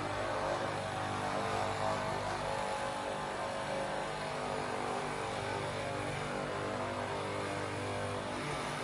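A steady machine hum with a fixed pitch that holds evenly throughout.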